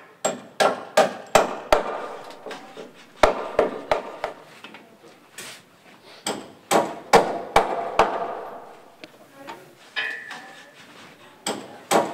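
Carpenter's hammer striking timber in irregular series of blows, sometimes two or three a second, each blow ringing briefly through the wooden frame of a tea hut under construction, with round log rafters being knocked into their joints.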